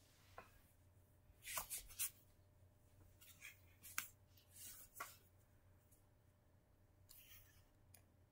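Near silence broken by faint handling noises: soft rustles and small clicks of hands moving over fabric and plush toys. They come in a short cluster about one and a half to two seconds in, again around four and five seconds in, and once more around seven seconds.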